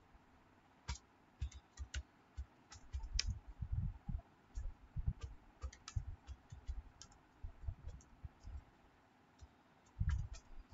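Typing on a computer keyboard: irregular key clicks with dull thumps beneath, in short runs with brief pauses.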